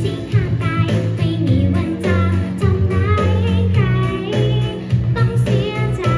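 A young girl singing a Thai pop song into a handheld microphone over backing music, both amplified through a stage sound system.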